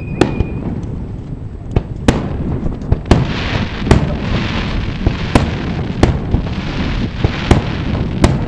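Aerial fireworks bursting, a sharp bang about once a second, with a crackling hiss of burning stars building from about three seconds in.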